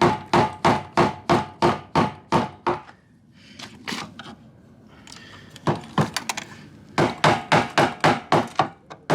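Rapid, ringing metal taps, about three a second, as a flathead screwdriver is struck against the locking ring of a 2007 GMC Sierra's in-tank fuel pump module to rotate it into its locked position. A run of taps, a pause of about three seconds, then more taps from about six seconds in.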